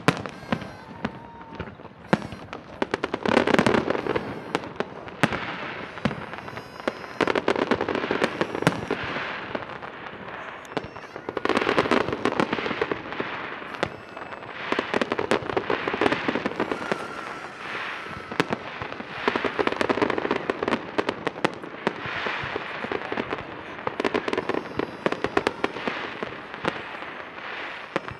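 Aerial fireworks display: a constant run of sharp bangs from bursting shells, with denser salvos of crackling bursts every three to four seconds.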